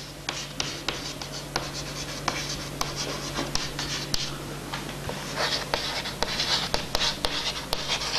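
Chalk writing on a chalkboard: quick taps and scratchy strokes as words are written out, the strokes heavier in the second half. A faint steady low hum runs underneath.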